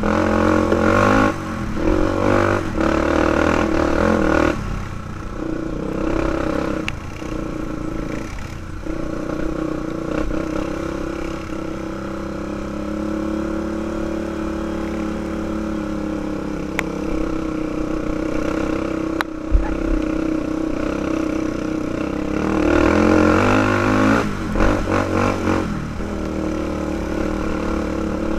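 2005 Honda 400EX ATV's single-cylinder four-stroke engine running under way on a dirt trail. It revs up and down in short bursts with throttle changes at first, settles into a steadier drone through the middle, then revs in bursts again near the end.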